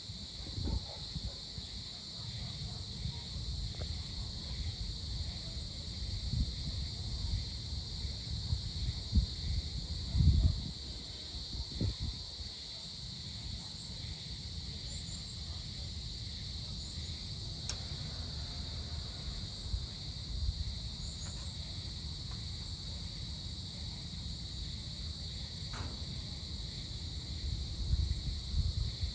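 Steady, high-pitched chorus of crickets or similar insects, with irregular low rumbling underneath that is loudest about ten seconds in.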